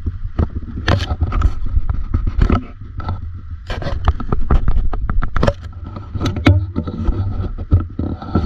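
Fish biting and chewing cricket bait underwater: a dense run of sharp, irregular clicks and crunches over a low rumble, with a faint steady whine underneath.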